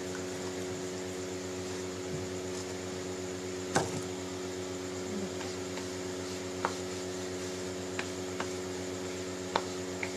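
Steady electrical hum with a faint hiss, made of several fixed tones, broken by a few sharp clicks, the loudest about four seconds in and three softer ones later on.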